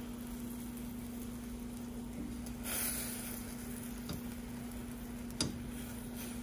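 Silicone spatula stirring heating cream in a stainless steel saucepan: a short scrape about three seconds in and two light taps against the pan, over a steady low hum.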